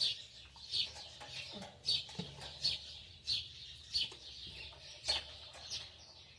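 Birds chirping: short, high, downward-sliding calls repeated over and over, roughly one or two a second.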